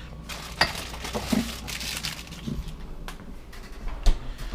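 Condiment bottles and jars knocking and clinking as they are shifted about on a fridge shelf: a handful of scattered knocks, the loudest near the end.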